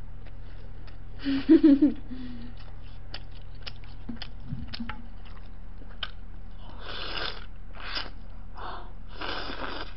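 Close-up eating sounds: chewing with small clicks, then several noisy slurps of noodles from a steel bowl in the second half, over a steady low hum. A brief muffled voiced sound, the loudest moment, comes about a second and a half in.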